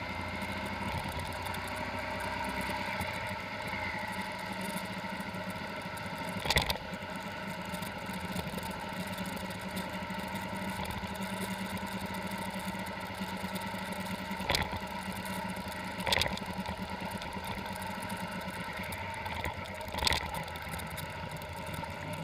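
Motorcycle engine running steadily while riding, with a steady whine through the ride, heard from a camera mounted on the bike. Four short sharp knocks cut through it along the way.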